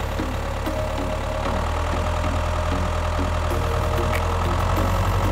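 Engine idling steadily, a low, even drone with no revving.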